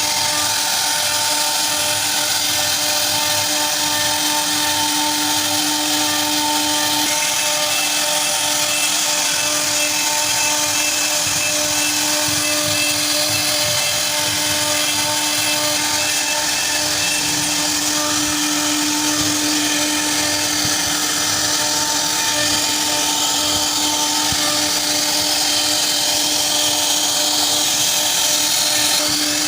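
CNC router spindle carving wood: a steady whine held at an even pitch over the hiss of the bit cutting.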